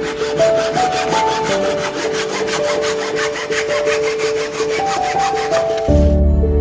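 Rapid back-and-forth strokes of a hand tool working wood, about six a second, over background music. The strokes stop about six seconds in, and the music carries on with a deep bass note.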